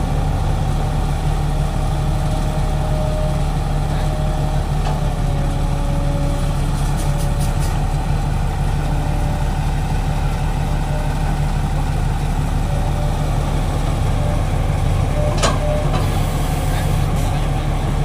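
Heavy diesel engines of a crawler bulldozer and a hydraulic excavator running steadily with a low, even hum, and a single sharp metallic knock about fifteen seconds in.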